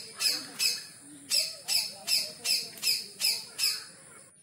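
A bird calling a rapid series of short, high notes, about three a second, with a brief break about a second in; the calls stop shortly before the end.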